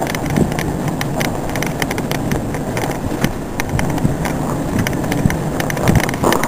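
Truck driving on a snow-covered road, heard from inside the cab: a steady rumble of engine and tyres with frequent small irregular clicks and rattles.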